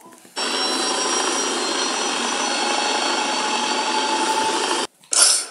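Steady mechanical whirring noise that starts abruptly about half a second in and cuts off suddenly near the end, followed by a brief second burst.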